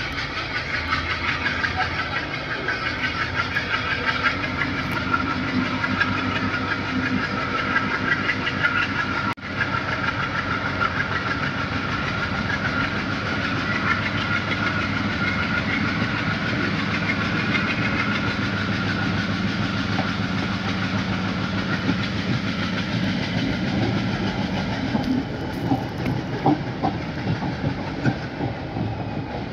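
Passenger train running steadily along the line, the continuous rumble and rattle of its wheels on the rails heard from aboard the moving train.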